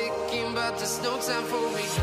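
Background pop song with a sung melody over sustained musical notes, in a softer passage.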